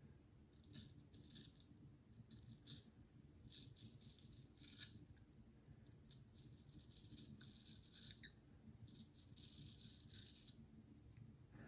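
Faint scraping of a Thiers-Issard frameback straight razor cutting lathered stubble. It comes as a series of short, slow strokes, with one longer stroke near the end.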